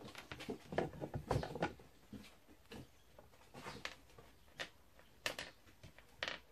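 A kitten scrabbling and batting at a small plastic stool on a hard floor: irregular scuffs and light taps, busiest about a second in, then scattered single clicks.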